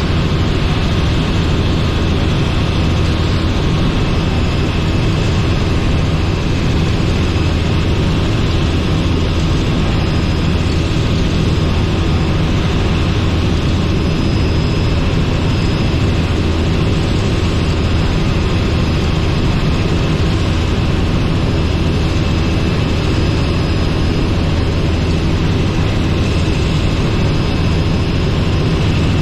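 Robinson R44 helicopter in flight: its piston engine and rotors make a loud, steady drone that does not change.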